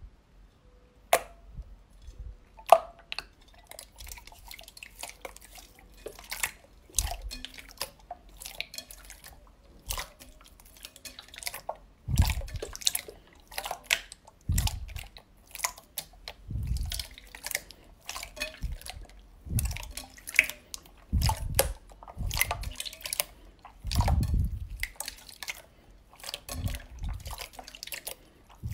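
Clear green slime being pressed and squeezed by hand in a glass bowl: irregular wet clicks and pops, with deeper squelches every couple of seconds in the second half.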